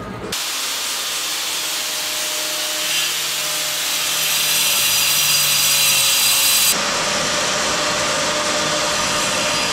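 Power tool cutting into a concrete wall: a steady, loud grinding noise that changes abruptly about two-thirds of the way through.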